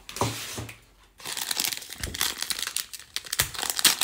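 Foil wrapper of a Panini Prizm trading-card pack crinkling and tearing as it is opened by hand, a dense crackle starting about a second in.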